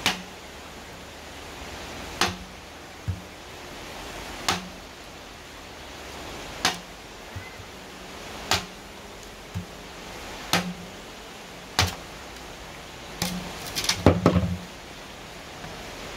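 Sharp knocks or clicks, each with a short low thud, repeating about every one to two seconds, then several in quick succession near the end, over a steady hiss.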